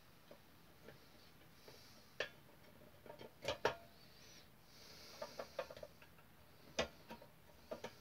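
Small hand tools, a screwdriver and a little spanner, clicking and tapping against the metal buffer beam and chassis of a model locomotive tender while a screw and nut are fitted. The sharp clicks come irregularly, loudest a close pair about three and a half seconds in and another near seven seconds.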